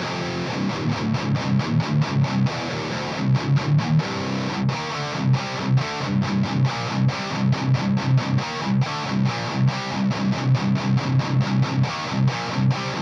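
Electric guitar tuned to drop C played through a Splawn Quickrod 100 valve amp head, a modded-Marshall-style amp, with heavy distortion: a riff of palm-muted low chugs and short stabs, about three accents a second.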